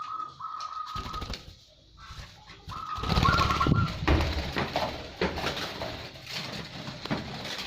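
Zebra dove cooing in a run of fast, trilled notes, in two stretches. About three seconds in, a loud burst of rustling with sharp clicks and knocks starts; it is the loudest sound and runs on, fading, to the end.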